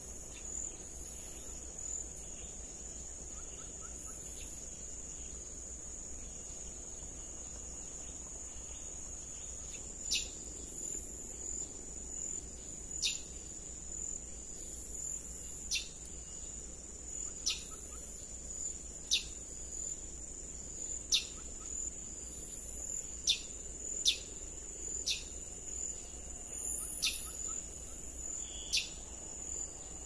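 Insects keep up a steady high-pitched drone. From about ten seconds in, a bird gives short, sharp, high calls every second or two.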